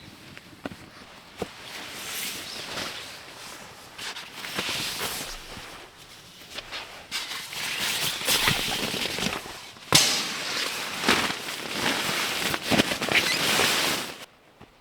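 Irregular crackling and rustling, growing louder about halfway through and cutting off abruptly near the end.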